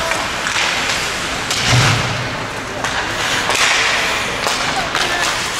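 Ice hockey in play: skate blades scraping the ice and sharp clicks of sticks and puck over a steady rink noise, with one heavy thud about two seconds in.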